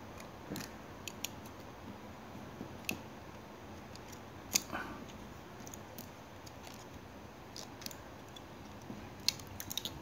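Scattered sharp metallic clicks of a stainless steel Leatherman Rebar multitool being handled, its fold-out tools being swung out and snapping against the handles. The loudest click comes about halfway, with a quick run of clicks near the end.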